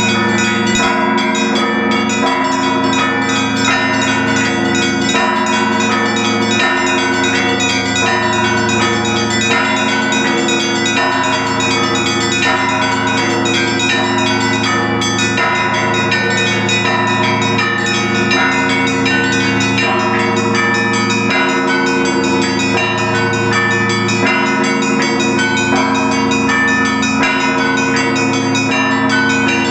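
Russian Orthodox church bells on a cathedral belfry ringing together in a continuous peal. Small bells are struck rapidly over the lingering ring of the larger ones, with a deeper bell stroke every few seconds.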